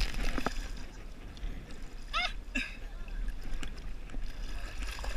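River water splashed by hand against a camera held at water level, then the low rumble and lapping of moving water on the camera housing. A brief distant voice sounds about two seconds in.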